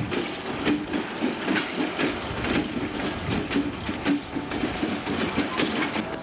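Diesel locomotive rolling slowly past at close range, its wheels clicking and clattering over rail joints at an uneven pace of a few knocks a second over a steady rumble.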